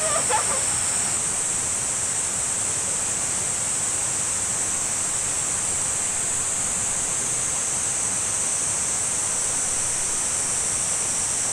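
Steady rush of a flowing river, with a constant high-pitched insect drone over it.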